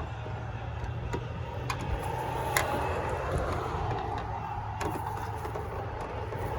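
A few sharp, light clicks and taps of a screwdriver working on the lock's retaining screw inside a car door, over a steady low background hum.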